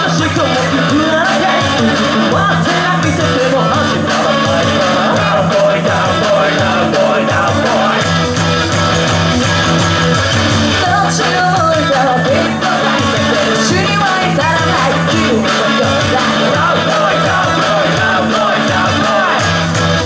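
Live rock band playing: electric guitar, bass and drums, with vocalists singing over them.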